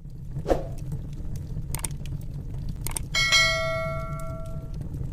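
Wood fire crackling over a low steady rumble, with a few sharp clicks. About three seconds in comes a bright bell chime that rings for under two seconds: the notification-bell sound of a subscribe animation.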